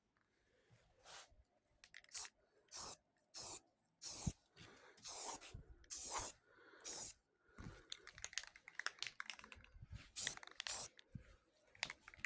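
Aerosol can of sandable spray primer hissing in a series of short bursts, about a dozen quick sprays with brief pauses between them, laying a coat of primer.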